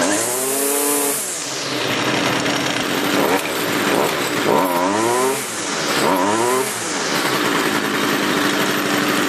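Stihl FS55R string trimmer's small two-stroke engine running, revved up and dropping back to idle about three times, with a steady idle between. It revs cleanly and holds its idle, running properly now that its clogged spark arrester screen has been cleaned.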